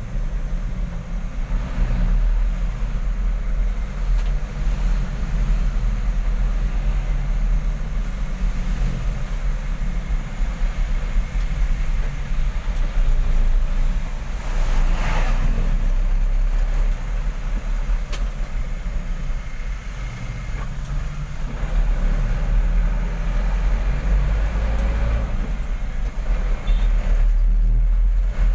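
Truck engine running while the truck is driven, a steady low drone under road noise, with the engine note shifting now and then.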